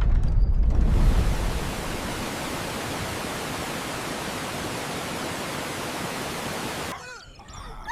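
Steady rushing hiss with a heavy low rumble in the first second and a half, cutting off sharply about seven seconds in.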